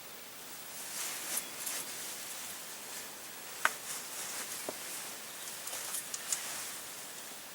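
Soft rustling that rises about a second in and goes on unevenly, with two short sharp clicks near the middle.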